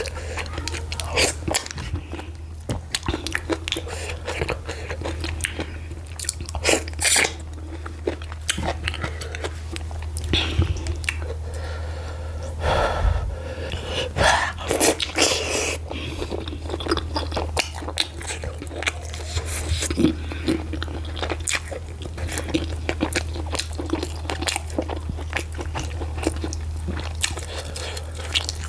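Close-miked wet chewing and mouth sounds of someone eating garri fufu with slimy ogbono soup by hand: sticky smacks and many quick clicks, louder spells about seven seconds in and around the middle. A steady low hum runs underneath.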